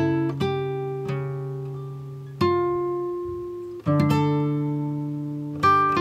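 Background music on a plucked string instrument, most like acoustic guitar: slow notes and chords struck every second or so, each ringing out and fading away.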